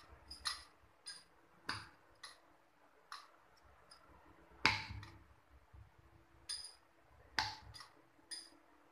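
Bangles clinking and a wooden rolling pin knocking on the rolling board as stuffed paratha dough is rolled out. The sound is a dozen or so sharp, irregular clicks, some with a short high ring, the loudest about halfway through.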